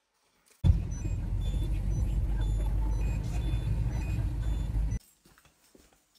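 Steady low rumble of a car heard from inside the cabin, with a few faint short high beeps over it; it starts abruptly just under a second in and cuts off abruptly about four seconds later.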